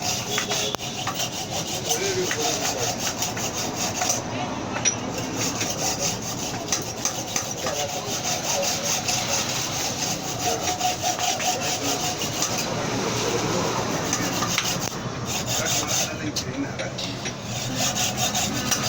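Continuous scraping of a hand tool working metal during repair of a Honda CG-125 wheel hub's key.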